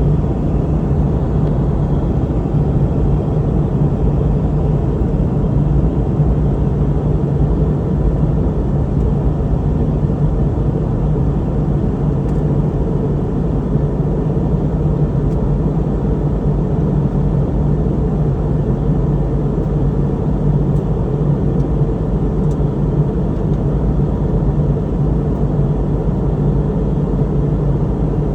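Steady cabin drone of a Boeing 717-200 in flight, engine and airflow noise blended, with a low hum running under it.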